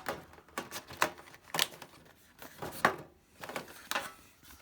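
Sticker sheets and other tin contents being handled: about half a dozen short rustles and light taps of paper and plastic, one after another.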